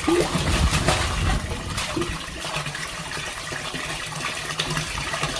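Water gushing steadily as a sump pump in an outdoor dewatering pit pumps out groundwater.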